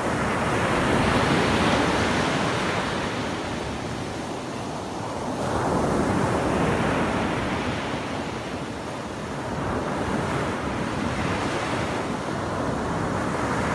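Small sea waves breaking and washing up a sand beach, the surf noise swelling and easing about every four to five seconds.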